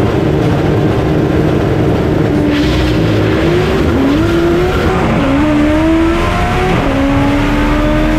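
Turbocharged AWD Honda Civic drag car accelerating hard down the strip at full throttle. Its engine note climbs steadily and drops back at each of several quick upshifts.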